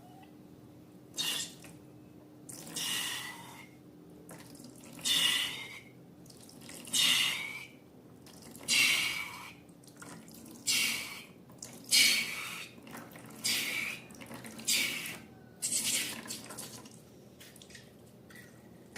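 About ten short wet, squishy noises, one every one to two seconds, like slime being squeezed and worked by hand.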